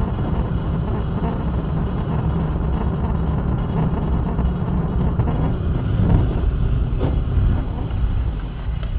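Steady road and engine noise of a moving car, heard from inside the cabin through a dashcam's microphone.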